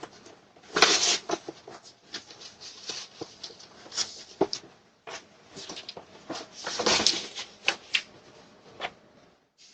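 A string of scuffs, knocks and rustles, as of someone handling things close to the microphone, loudest in two noisy bursts about a second in and around seven seconds in.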